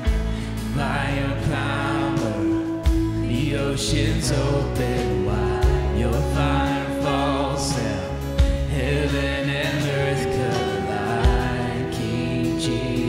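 Gospel praise-and-worship song: voices singing over a band with sustained chords and a strong beat landing about every three seconds.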